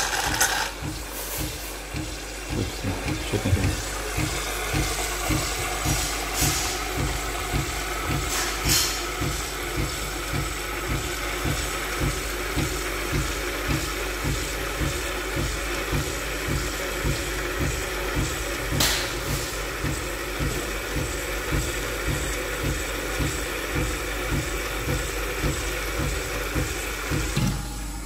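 Nespresso Lattissima One frothing milk and dispensing it through its milk spout. A steady hiss runs over a rhythmic pulsing of about three beats a second, and both cut off just before the end as the milk cycle finishes.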